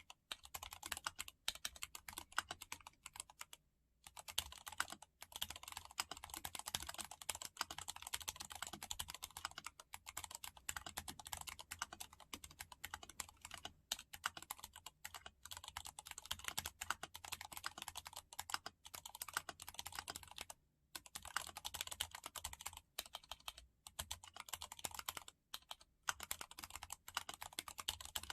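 Steady typing on a mechanical keyboard with Gateron Ink Yellow linear switches lubed with Krytox 105: a dense run of keystroke clacks, with a few brief pauses.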